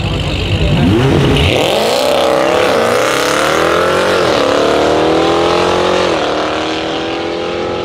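Two cars launching side by side from a standing start down a drag strip, a Jeep Grand Cherokee SUV and a Porsche 911, their engines revving up hard under full throttle. The pitch climbs and drops back at each upshift, three times, as they pull away.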